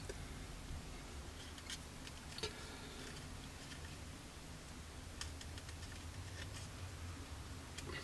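Faint, scattered light clicks and taps of a plastic model kit fuselage being handled and turned over in the hands, over a low steady hum.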